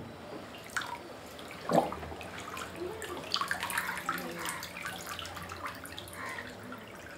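Floodwater sloshing and splashing inside a flooded house as a man wades through it, the loudest splash just under two seconds in, followed by steady dripping and trickling water.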